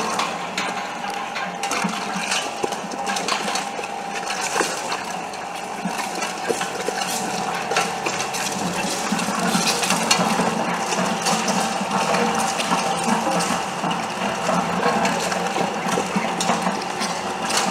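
Automatic chicken meat-and-bone separating machine running while it processes chicken pieces: a steady motor hum under dense, irregular clicking and rattling.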